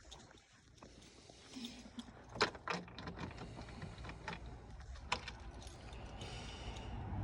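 Sharp clicks and light metallic jangling of keys being handled, over a low hum that grows louder toward the end.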